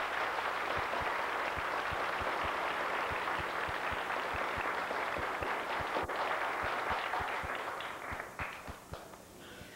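Congregation applauding in a church, a dense steady clapping that starts to thin out and die away about eight seconds in.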